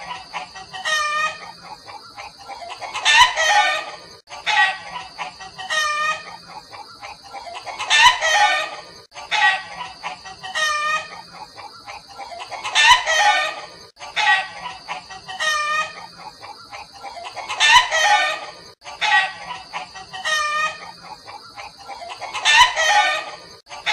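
Chicken clucking, a recorded sequence looped so that it repeats about every five seconds, each round opening with a loud cluster of calls.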